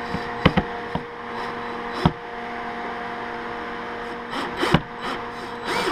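Sharp clicks and knocks of hard plastic mount parts being handled and seated on a cooler lid: two close together about half a second in, one about two seconds in, and a few more near the end. A steady hum runs underneath.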